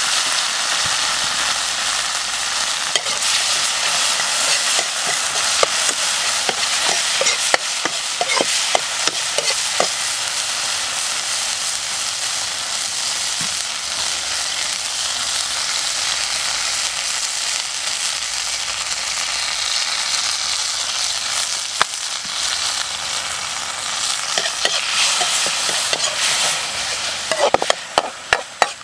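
Chopped aromatics sizzling in hot oil in a steel wok over a wood fire, a steady hiss with scattered pops. Near the end a metal spatula clicks and scrapes against the wok as the mix is stirred.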